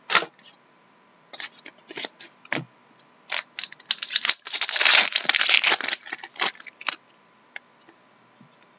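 A foil trading-card pack wrapper being torn open and crinkled, loudest about halfway through, with sharp clicks and scrapes of cards being handled before it.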